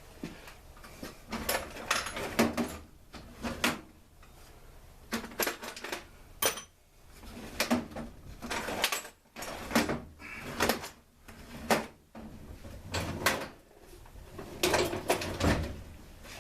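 Irregular knocks, clicks and clatter of tools and blower parts being handled during a teardown of a Stihl SR 420 backpack blower.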